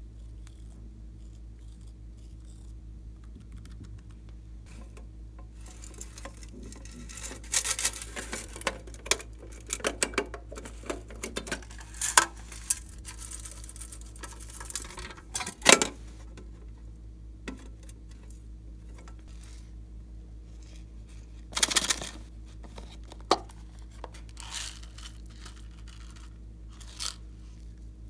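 Loose sequins and glitter rattling and scattering out of a plastic container onto slime in dense crackly bursts, then a few lighter clicks and sprinkles. A steady low hum runs underneath.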